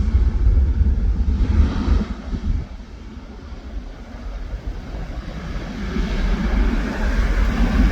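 Jet airliner's engines at takeoff power: a loud, noisy low rumble that dips for a couple of seconds in the middle, then swells again toward the end.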